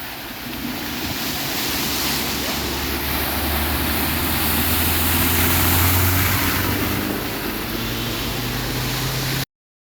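A motor vehicle's engine hums as it drives past, getting louder to a peak about six seconds in and then easing off, over a steady hiss of heavy rain and floodwater. The sound cuts off abruptly near the end.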